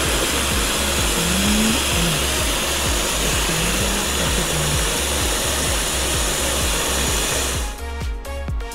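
Countertop blender running on a thick purée of sweet potato and butternut squash, a steady loud whir that cuts off abruptly near the end. Background music with a steady bass beat plays underneath.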